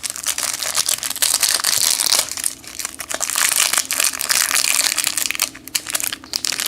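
Plastic wrapper of a trading card pack crinkling in a dense run of crackles as the pack is handled and opened.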